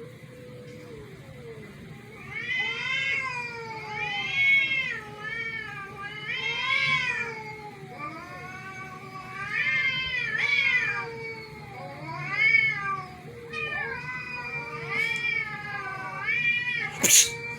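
A cat meowing over and over: long meows that rise and fall in pitch, about one a second, starting about two seconds in. A sharp click comes near the end.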